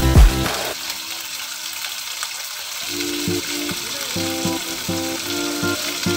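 Chicken pieces sizzling as they fry in oil in a nonstick frying pan, a steady hiss throughout. Background music plays over it, with heavy bass beats in the first second and repeated short melody notes from about three seconds in.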